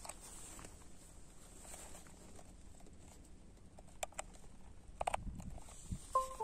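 Faint handling noise and small plastic clicks as a USB data logger and its cable are plugged into a laptop. Near the end comes a brief electronic chime of a few stepping tones.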